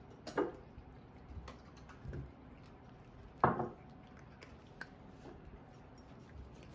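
Cats eating dry kibble from bowls: faint crunching and small clicks of kibble against the bowls, with two louder knocks, one about half a second in and one about three and a half seconds in.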